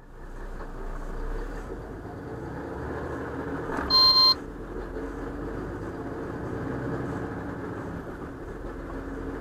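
Lorry cab interior while driving: steady engine and road drone. About four seconds in, a short, loud electronic beep sounds once for about half a second.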